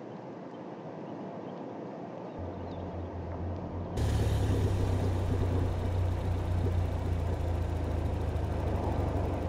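Car engine running, a steady low rumble that cuts in abruptly about four seconds in and stays loud; before it, quiet outdoor ambience with a faint low hum.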